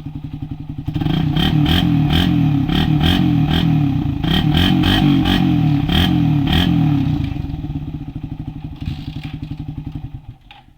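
Suzuki Raider 150 carbureted single-cylinder engine running through an open exhaust pipe, revved in quick blips with sharp cracks from the pipe. It eases back and falls away near the end.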